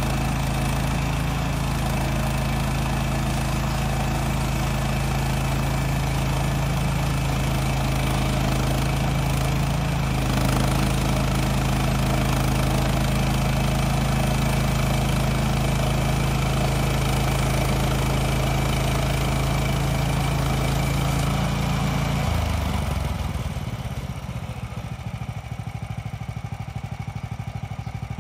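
Woodland Mills HM126 portable bandsaw mill's gas engine running steadily at full throttle while its blade saws a cedar log. About three-quarters of the way through it is throttled back and settles to a lower, quieter idle as the cut ends.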